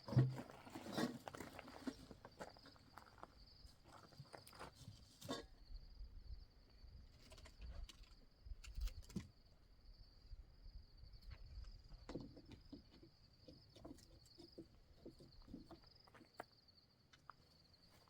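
Crickets chirring steadily at night, under scattered footsteps, rustles and light knocks that are busiest in the first few seconds.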